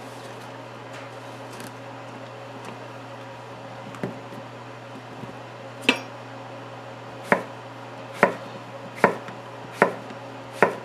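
Chef's knife slicing yellow squash on a wooden cutting board: about seven sharp knocks of the blade striking the board, beginning about four seconds in and coming a little faster toward the end.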